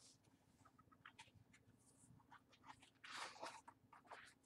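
Near silence with faint rustling of a hardcover picture book's pages being handled and turned, and a brief louder rustle about three seconds in.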